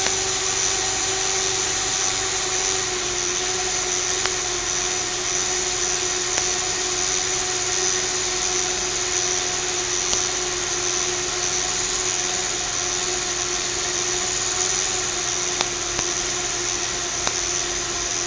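Small electric motors of a fischertechnik monorail car spinning its propellers: a steady whir with a hum whose pitch sinks slightly over the stretch.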